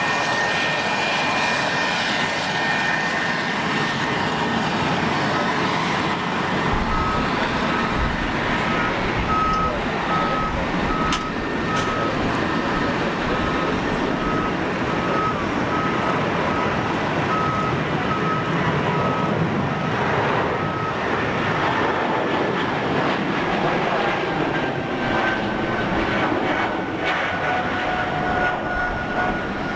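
Jet engines of a Bombardier CS100 running, their tones falling slowly in pitch in the last third as the airliner passes. Through the middle there is also a faint beeping, about one beep a second, like a vehicle's reversing alarm.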